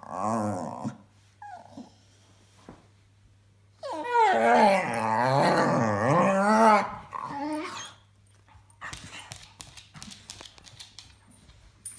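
Dog making funny drawn-out vocal noises, a wavering whine-like call that bends up and down in pitch: a short one at the start and a long one of about three seconds in the middle. Faint scattered clicks and rustles follow near the end.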